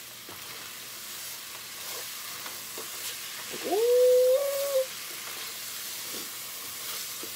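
Ground beef with taco seasoning and a little water sizzling in a pot over a red-hot electric coil burner while a spatula stirs it. About halfway through, a loud high cry rises sharply and then holds steady for about a second.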